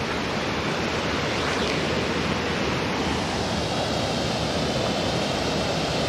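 Water pouring steadily over a low stone mill-dam spillway, a constant rushing hiss.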